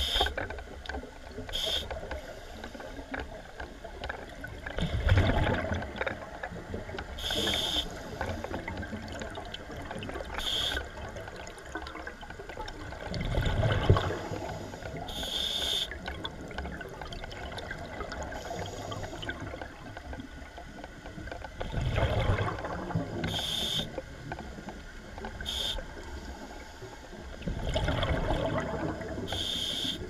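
Scuba diver breathing through a regulator underwater: short hissing inhalations and louder bursts of bubbling exhalation, about one breath every eight seconds.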